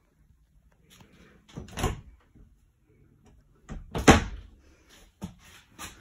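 A door inside the RV being opened and shut, with handle and latch clicks. There is a clatter about two seconds in, a louder knock and rattle about four seconds in, and lighter clicks near the end.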